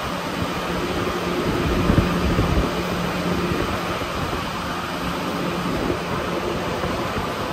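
Inside an Alstom NS-93 rubber-tyred metro car running between stations: a steady rumble with a low hum that comes and goes, and a brief thump about two seconds in.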